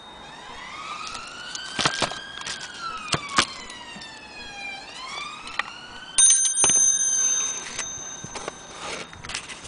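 A wailing siren slowly rising and falling in pitch, over scattered clicks and knocks from handling a mantle clock movement. About six seconds in a sudden high ring starts loud and fades out over about a second and a half.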